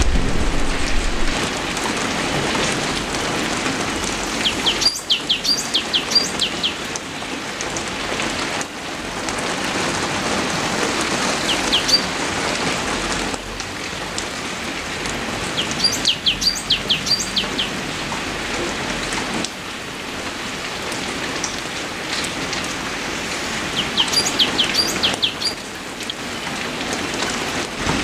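Steady rain falling on leaves, with a bird calling every few seconds in quick runs of short, high, falling notes.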